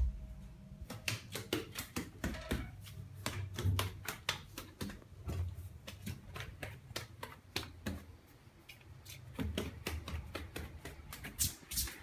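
Footsteps going down a flight of stairs: dull thuds about every second or two, mixed with many light clicks and rustles from the handheld phone being carried.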